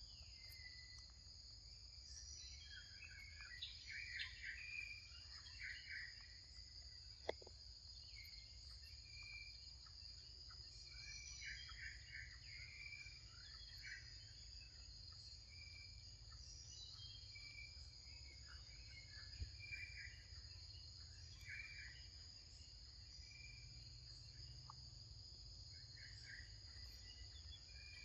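Faint forest ambience: insects droning steadily at a high pitch, with scattered short bird chirps throughout and a single sharp click about seven seconds in.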